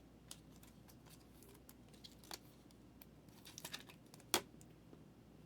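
Faint, scattered light clicks and taps from small objects being handled, with a sharper click about two-thirds of the way through.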